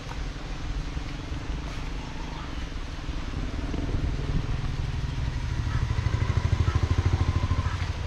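Heavy rain hissing steadily while a motor vehicle's engine grows louder, with a fast low throb at its loudest about six to seven seconds in, then easing off.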